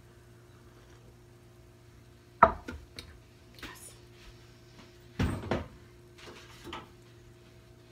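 Kitchen knocks and clatter from things being handled: one sharp knock about two and a half seconds in followed by a few lighter clicks, then a short cluster of knocks a little past halfway and a couple of softer ones after, over a faint steady hum.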